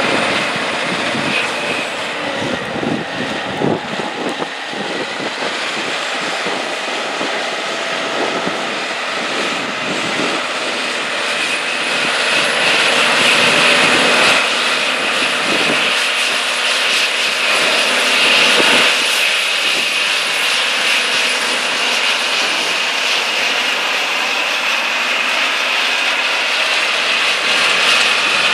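John Deere 9R-series four-wheel-drive tractor working under load, pulling a Great Plains Turbo-Chisel chisel plow through the soil, its engine running steadily with a high whine. The sound grows louder about halfway through as the tractor comes closer.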